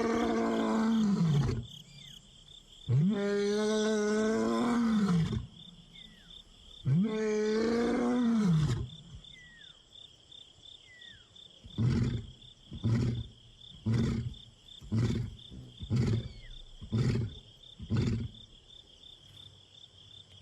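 Male African lion roaring: three long, moaning roars, then a run of about seven short grunts about a second apart. This is a lion's full roaring bout, a contact call to his brother that goes unanswered.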